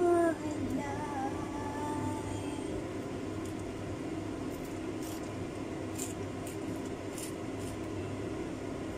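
Cheese being grated on a metal box grater over a baking dish: a few short scraping strokes, heard over a steady low hum.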